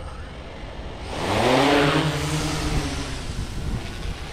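SwellPro FD2 Fisherman Max quadcopter drone taking off: its motors and propellers spool up with a rising whine and a rush of prop wash about a second in, then the sound eases as it climbs away.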